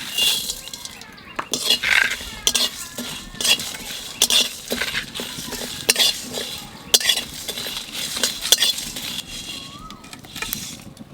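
A spatula stirring and scraping whole spices in a dry pan, with repeated irregular clinks of metal on the pan as cumin, coriander, fennel, dried chillies and black peppercorns are dry-roasted.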